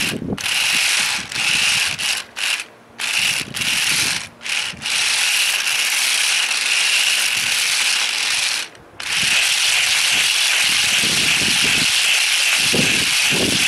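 Dual electric motors and plastic gearboxes of a toy RC rock crawler whirring, starting and stopping in short bursts for the first five seconds, then running steadily with one brief stop about nine seconds in.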